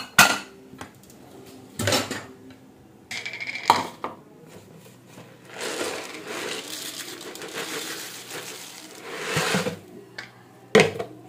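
A few clinks and knocks of steel and plastic dishes as a plastic bowl is taken from the rack, then puffed rice poured from a plastic jar into a plastic bowl, a rustling pour lasting about four seconds, with one more knock near the end.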